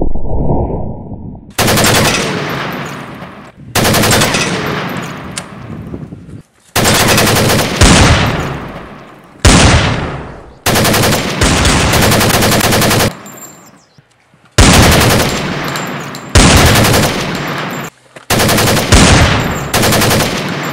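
Gunfire sound effects: repeated bursts of rapid shots, each starting suddenly at full loudness and dying away in a long echoing tail, with abrupt cuts between bursts.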